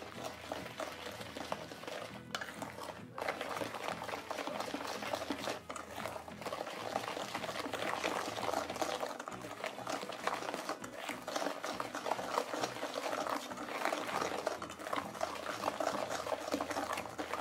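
Hand whisk beating a thin liquid batter of eggs, sugar, oil and milk in a stainless steel mixing bowl: a continuous wet, sloshing stir.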